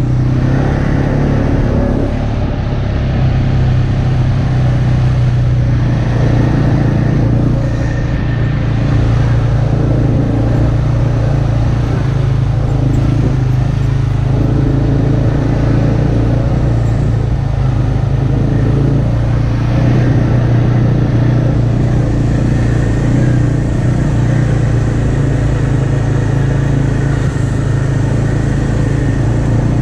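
ATV's single-cylinder four-stroke engine running steadily on the move, with the wind and trail rumble of riding on a dirt track.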